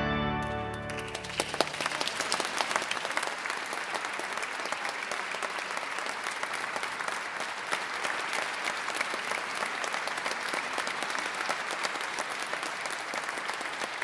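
The organ's closing full chord cuts off within the first second and rings away in the church's reverberation. Then an audience applauds steadily.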